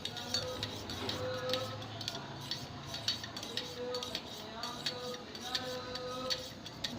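A spoon stirring turmeric milk, clinking repeatedly and irregularly against the side of its container, with soft background music.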